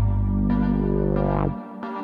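Electronic background music: sustained synthesizer chords over a deep bass, which drops out abruptly about a second and a half in.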